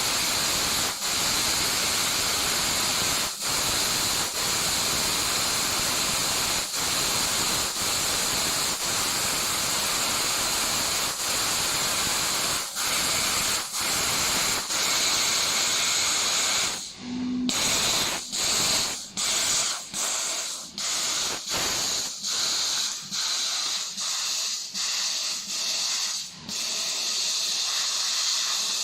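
Fiber laser cutting machine running, with a loud, steady hiss of gas from the cutting head. The hiss stops briefly again and again, more often in the second half.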